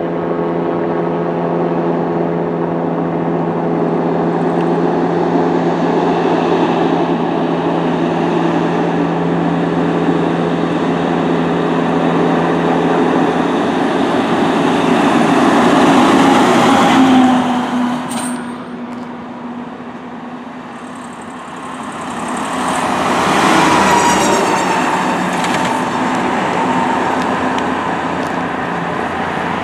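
Fire trucks passing on an emergency response: a long, steady horn blast, then the fire engine passes loudest with its sound dropping in pitch. A second fire truck follows with its warning sounds rising again and sweeping in pitch before fading.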